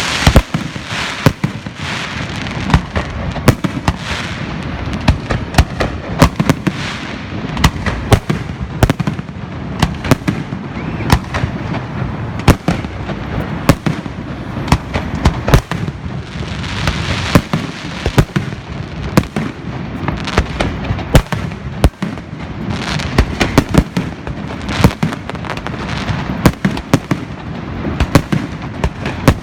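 Aerial fireworks going off in a rapid, unbroken run: sharp bangs several a second over a continuous crackling hiss.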